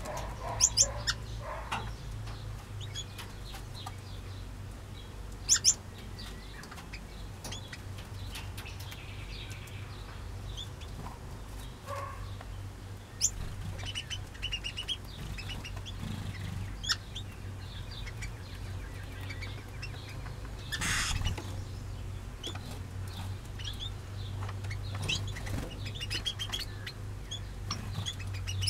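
Mixed aviary finches and small parrots chirping and calling on and off, with short high notes and a few sharp, loud calls, over a steady low hum. A brief louder burst about two-thirds of the way through.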